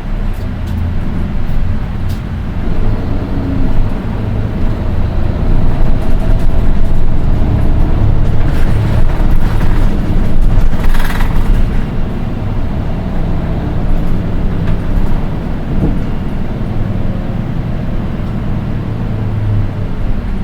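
Nissan Diesel Space Runner RM820 city bus running, heard from inside: its diesel engine rumble swells and falls back as the bus pulls away and cruises, with a short hiss of air about eleven seconds in. The engine carries a high-pitched note, an oddity of this particular bus.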